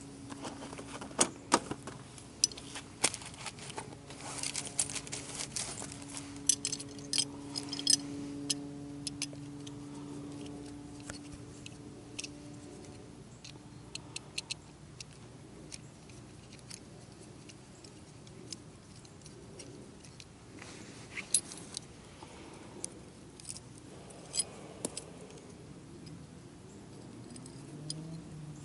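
Screwdriver clicking and scraping against the metal of a Yamaha VMAX seat latch, picking packed grass out of the bent latch piece: light metallic clinks in irregular bunches. A faint steady hum stops about halfway through.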